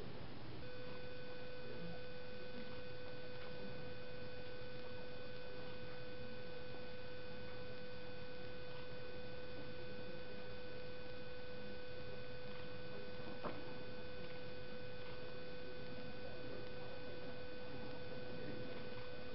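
A steady humming tone sets in just under a second in and holds unchanged over faint room noise, with a single click about two-thirds of the way through.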